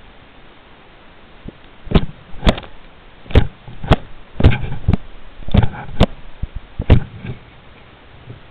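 Handling noise: a series of about ten sharp knocks and taps on the camera at an uneven pace, starting about two seconds in and stopping about a second and a half before the end.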